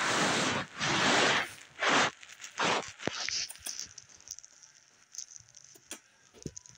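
Phone handling noise: fingers rubbing and scratching over the microphone in several rustling bursts over the first few seconds, then a few faint clicks.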